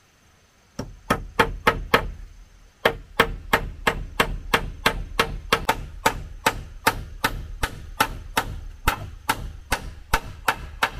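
Repeated blows of a tool on wood in a fast, even rhythm, about three a second: a run of five blows, a pause of about a second, then a long unbroken run.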